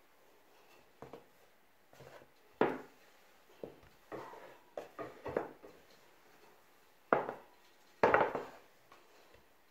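Wooden rolling pin rolling shortcrust cookie dough thin on a wooden pastry board, in irregular strokes. A few sharper knocks of wood on wood come through, the loudest near the end.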